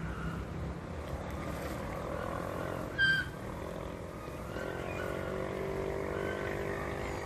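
A steady low engine drone, like a distant aircraft or vehicle, that grows stronger and more tonal in the second half, with one short, high, clear call about three seconds in.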